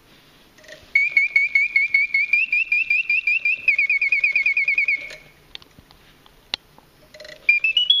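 French Bontems clockwork singing-bird automaton whistling its song through its bellows-blown whistle. Quick repeated chirps for about four seconds quicken into a fast trill, then stop. A sharp mechanical click sounds in the pause, and a new phrase of rising notes starts near the end.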